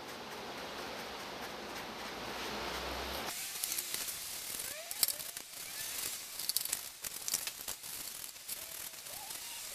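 Brush scraping and dabbing wet black tile grout into the crevices of a foam-and-cement rock background, an irregular run of scratchy strokes and small clicks. A steady hiss fills the first few seconds.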